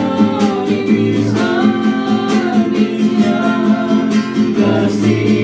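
Slow Indonesian worship song: a voice singing drawn-out lines over strummed guitar accompaniment.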